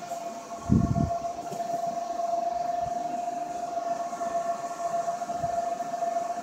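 A steady electronic hum: one held tone with fainter overtones above it, unchanging throughout. A short, loud low thump comes about three-quarters of a second in.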